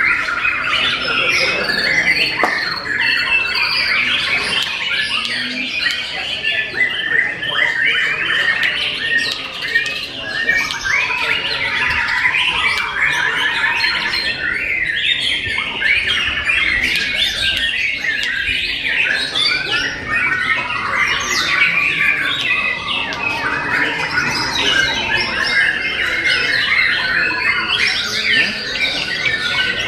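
White-rumped shamas singing continuously in contest cages: a loud, dense stream of varied whistles, trills and chattering notes with no pause.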